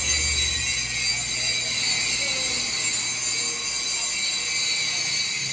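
Steady high-pitched hiss of a welding arc, with a low hum that fades out in the first couple of seconds.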